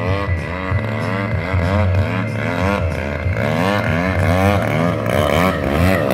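Desert Aircraft DA-120 twin-cylinder two-stroke gas engine of a large RC aerobatic plane running at high power, its pitch wavering up and down about three times a second as the plane manoeuvres low and close.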